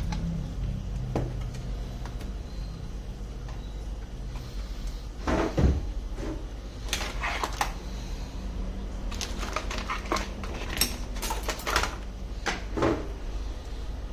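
Knocks, clicks and taps of small tools and parts being handled on a work surface. A loud knock comes about five seconds in, then a run of clicks and taps in the second half, over a steady low hum.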